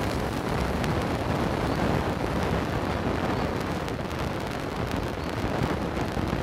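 Wind buffeting the microphone: a steady low rumble with no pauses.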